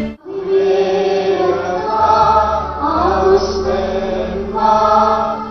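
Slow chanted singing in long held notes that step between a few pitches, starting after a brief break.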